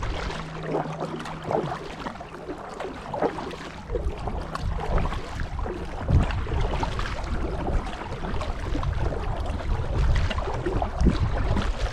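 Kayak paddle strokes dipping and splashing in canal water, with wind rumbling on the microphone that grows heavier about four seconds in.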